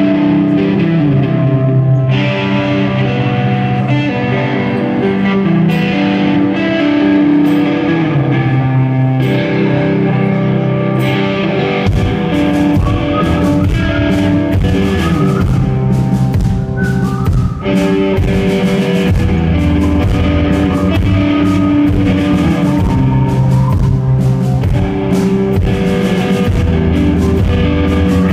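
A rock band playing live: electric guitars ring out over sparse drum hits at first, then the full drum kit comes in about twelve seconds in and the band plays on at full tilt.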